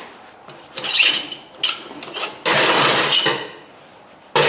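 Metal scraping and rasping as long through-bolts are worked out of a 2 hp electric motor's sheet-metal frame: a short scrape about a second in, a longer steady one midway, and another starting near the end.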